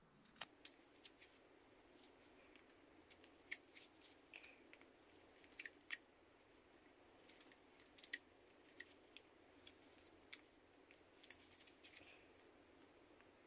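A carving knife taking thin cuts from a basswood blank: faint, irregular crisp clicks and snaps as the blade shaves chips off the wood, sometimes two close together.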